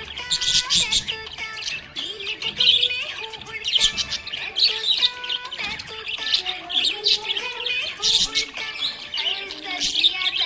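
Budgerigar chirping and warbling in a rapid, continuous stream, over a background music melody.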